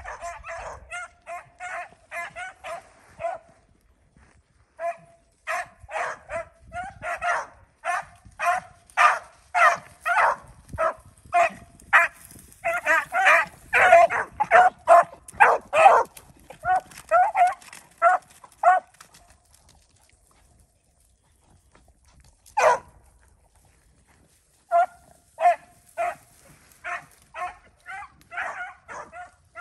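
Beagles baying in a rabbit chase, a steady run of rapid short barks that breaks off for a few seconds past the middle, gives one lone bark, then picks up again.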